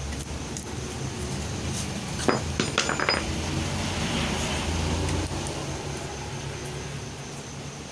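A quick cluster of light clinks, of metal or glass, a little over two seconds in, over a steady low hum.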